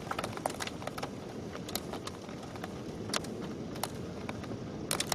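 Thunderstorm rain and wind: a steady hiss with about a dozen irregular sharp ticks of precipitation striking a hard surface.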